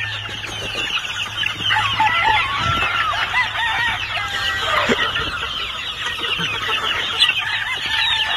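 A flock of young gamefowl chickens peeping and chirping all at once in a dense, unbroken chatter, with a few longer, falling calls among it.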